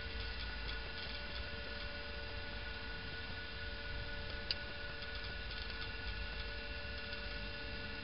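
Steady electrical hum with several constant tones, and one sharp click about halfway through.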